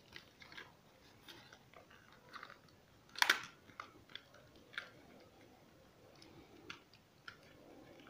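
Plastic shell of a DualShock 4 controller being pried apart by hand: faint scattered clicks and creaks, with one louder crack about three seconds in.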